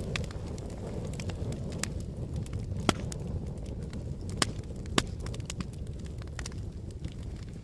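Wood fire crackling: a scatter of sharp snaps, with three louder pops, over a low steady rumble of wind.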